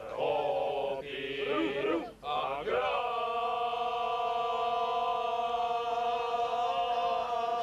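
Men's choir singing, moving through a phrase and then, about three seconds in, holding one long chord to the end of the song.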